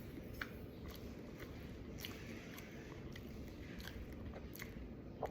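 Faint close-up chewing of a sandwich of crunchy breaded chicken nuggets, with small scattered crunchy clicks.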